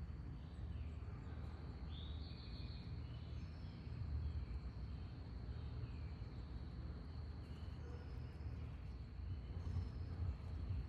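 A few faint bird chirps about two seconds in, over a continuous high insect trill and a steady low rumble.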